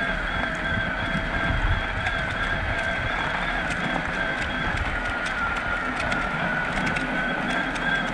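Electric mountain bike's motor whining steadily under load on an uphill climb, its pitch wavering slightly, over a low rumble of tyres on packed snow.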